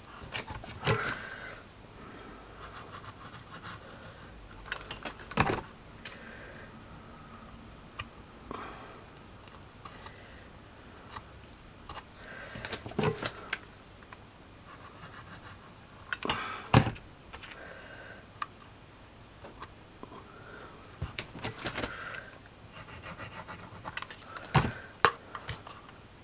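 Intermittent handling sounds of small craft work: taps, clicks and light scrapes as a hot glue gun is used and bamboo skewer pieces are pressed onto a chipboard wall, with several sharper knocks spread through.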